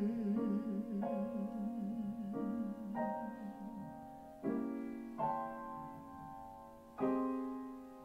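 Jazz piano chords struck one after another, roughly once a second, each left to ring and fade, with the playing growing quieter toward the end. A male singer's held note with vibrato carries over the first few seconds.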